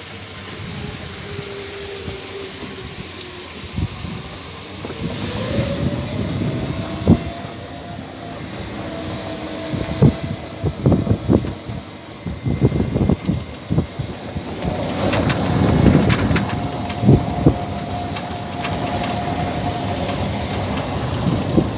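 Golf cart in motion: its motor whines, rising in pitch a few seconds in and then holding steady, with knocks and rattles from the cart as it rides.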